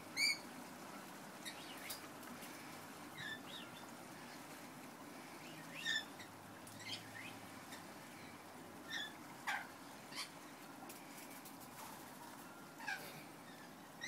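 Rainbow lorikeets giving short, high chirps and squeaks, scattered every second or two over a faint steady hiss.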